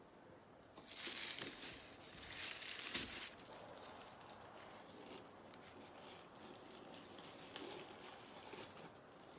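Rustling, crinkling noise: two loud spells about one and two and a half seconds in, then lighter scattered crackles.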